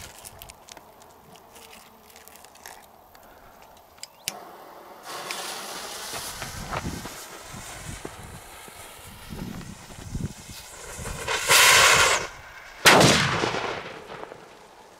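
A K55 firecracker's lit fuse hisses for several seconds, swelling to a louder burst of hissing for under a second. Then the firecracker goes off with one sharp bang about 13 seconds in, which echoes away.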